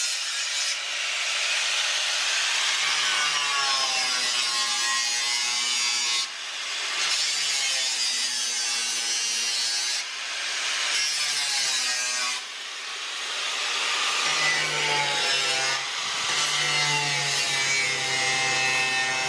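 Angle grinder with a cutting disc cutting through car body sheet metal: a steady hissing grind whose motor pitch sags and recovers as the disc bites. The grinding eases off briefly about 6, 10, 12 and 16 seconds in.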